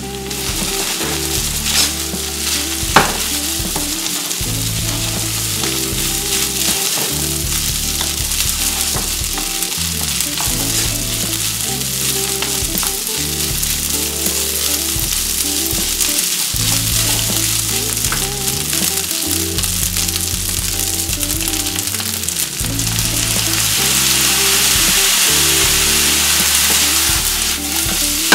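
Kimchi fried rice sizzling in a hot nonstick frying pan as it is stirred with a wooden spoon, with a sharp click about three seconds in. The sizzle grows louder about three-quarters of the way through.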